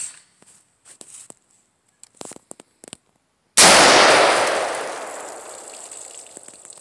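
A single .223 shot from a Smith & Wesson MP15 AR pistol's 7.5-inch barrel about three and a half seconds in: a loud blast whose echo fades away over about three seconds. A few faint clicks come before it.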